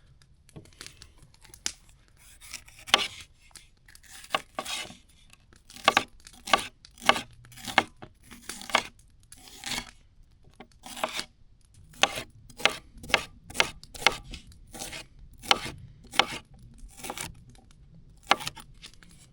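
A knife cutting up a red bell pepper, a long run of short, sharp cuts at an uneven pace of about one or two a second.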